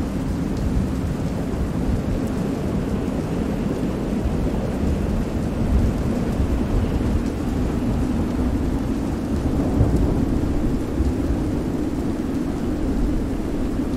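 Stormy-sea ambience: steady heavy rain over a deep, continuous rumble of thunder, wind and surf, swelling slightly twice.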